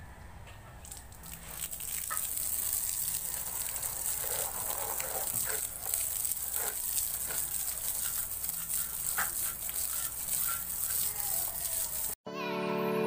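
Water spray hissing steadily onto a motorcycle as it is hosed down for washing, building up about a second and a half in, with scattered crackles and taps from the spray hitting the bodywork. Near the end it cuts abruptly to piano music.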